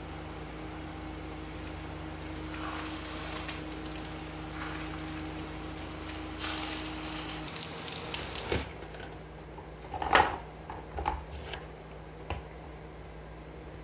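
Shiitake mushroom patties sizzling in hot oil in a frying pan, the sizzle growing as more are laid in, then cutting off suddenly about two thirds of the way through. A few light knocks and handling sounds follow.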